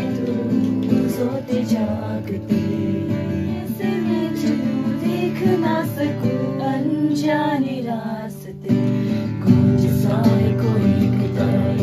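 Acoustic guitar strummed in chords while a woman sings along. The playing drops out briefly about eight and a half seconds in, then comes back.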